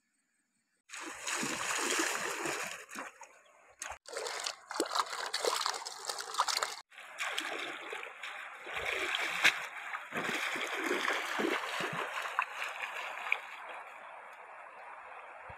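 Water splashing as a person wades through a shallow river, over the steady rush of the flowing current. It starts about a second in and breaks off briefly twice.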